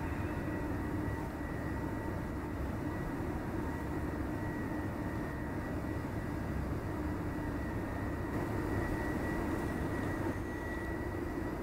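Steady rumbling background noise with a faint, even hum and no distinct knocks or footfalls.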